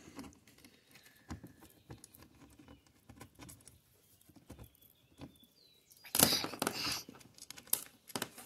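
Small clicks and scrapes of a nut and lock washer being fitted by hand onto a bolt through a steel brace and wooden handle, with a louder scraping noise for about a second about six seconds in.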